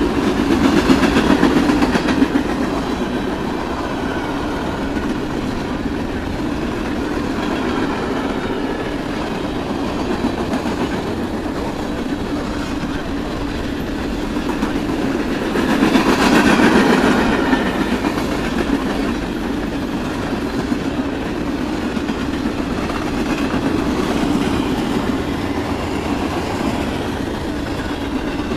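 Freight train of boxcars and covered hoppers rolling past at speed: steady rumble and clatter of steel wheels on the rails, swelling louder about a second in and again around sixteen seconds.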